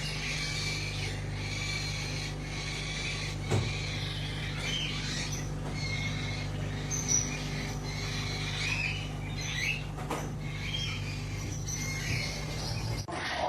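Parrot making short high chirps and squeaks again and again, over a steady low electrical hum, with two sharp clicks, one a few seconds in and one about ten seconds in.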